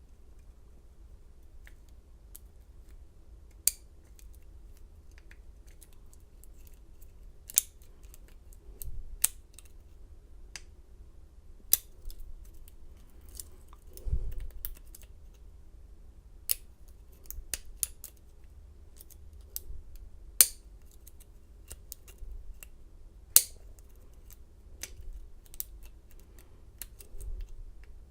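Single-pin picking of a Schlage pin-tumbler lock: a pick and tension wrench working in the keyway give irregular small metallic clicks and scrapes, with a few much louder sharp clicks scattered through.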